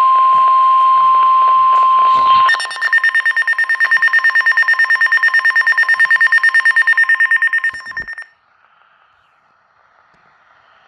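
Weather radio alert: a loud steady alarm tone, the NOAA Weather Radio warning tone, which about two and a half seconds in becomes a rapid pulsing beep of about seven beeps a second and cuts off about eight seconds in, leaving faint hiss. It is the alert that comes before a special weather statement about a strong thunderstorm.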